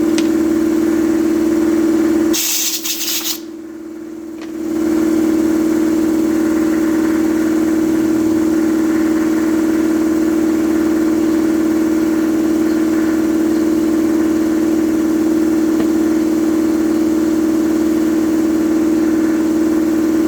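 Electric air compressor running with a steady hum. About two and a half seconds in, a hiss of about a second cuts across it.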